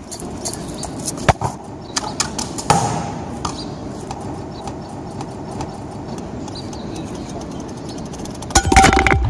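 Soccer ball knocking a few times on brick paving over a steady background hiss, then near the end a loud hit with a short ringing tone as the ball strikes the can.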